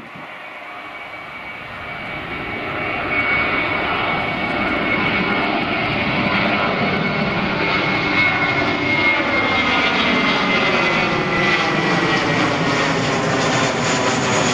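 Twin-engine jet airliner climbing out after takeoff and passing overhead: jet engine noise that builds over the first few seconds and then holds loud, with a high whine slowly falling in pitch as the aircraft passes.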